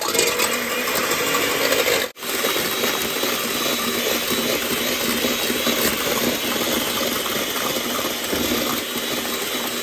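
Egg whites being beaten hard in a bowl to a froth: a fast, continuous beating noise that stops for an instant about two seconds in.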